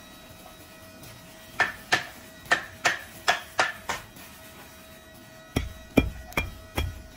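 Hands slapping and patting a tight, banded bundle of brush bristles standing on a particleboard block, knocking the filament ends level. A run of about six sharp knocks comes about a second and a half in, then after a short pause heavier, deeper knocks at roughly two to three a second.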